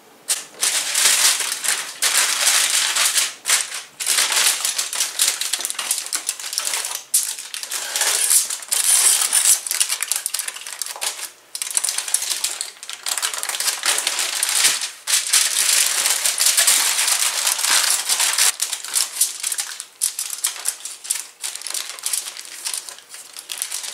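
Aluminium foil crinkling and crackling as hands roll a meatloaf up in it and press it tight, with a few brief pauses.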